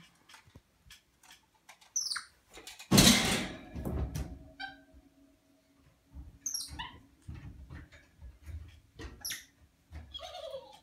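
Capuchin monkeys giving short, high-pitched squeaky chirps several times, each sliding down in pitch, with a loud thump and rustle about three seconds in.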